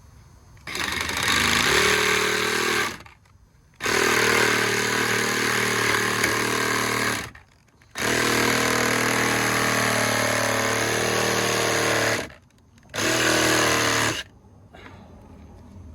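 Handheld power tool running at full speed in four bursts, the longest about four seconds, stopping briefly between them.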